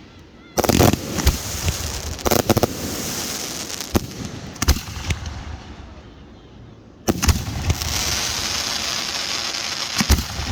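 Aerial fireworks bursting: sharp bangs, each followed by a spell of dense crackling. Big bursts come about half a second in and again about seven seconds in, with single reports scattered in between.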